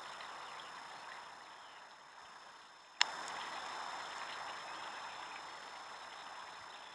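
Steady outdoor background noise with faint ticking, broken by a single sharp click about three seconds in.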